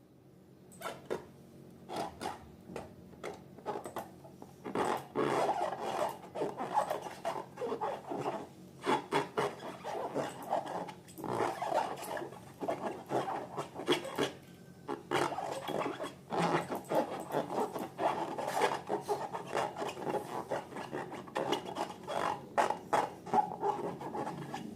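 Slime being mixed and worked, giving a dense run of irregular sticky clicks and squelches that starts about a second in and gets louder after about five seconds.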